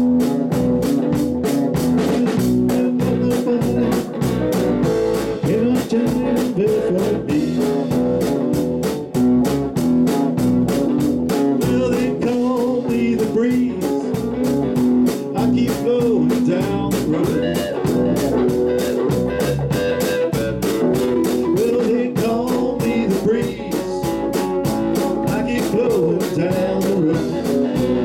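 Live band playing a blues-rock number: electric guitars over bass and drums, with a steady driving beat.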